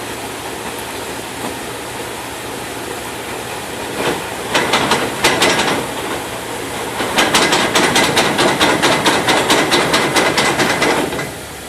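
1997 Dodge Ram 1500 4x4 running in four-wheel drive, then a rapid run of repeated banging knocks from the front drivetrain, in a short burst about four seconds in and a longer one from about seven seconds until near the end. The banging comes only in four-wheel drive while the wheels are turned, and stops when they are straightened or the truck is back in two-wheel drive.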